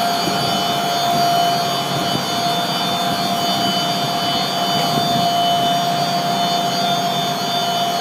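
Electric Prep/Master concrete floor grinder running steadily as its grinding head works across a concrete floor: constant machine noise with a steady whine.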